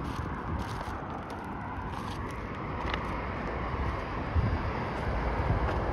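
Steady road traffic noise from cars passing on a highway, a continuous tyre and engine hiss and rumble.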